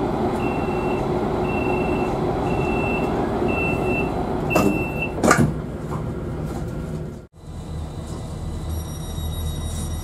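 Stadler GTW 3rd-generation train doors giving their departure warning: five short high beeps about one a second over the steady rumble of the train, then the doors shut with two sharp knocks about five seconds in, the loudest sound. After that comes the steady running rumble of a second train standing with its doors open.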